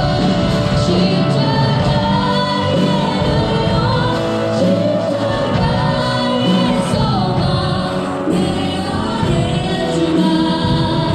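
Music: a song with singing voices over instrumental accompaniment, steady throughout.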